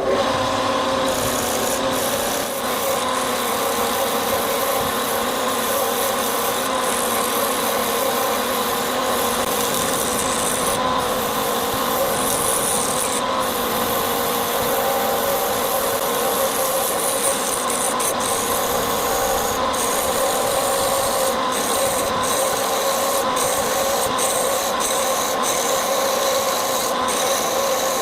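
Wood lathe running with a steady rasping of wood being worked against the spinning workpiece, over a faint steady hum.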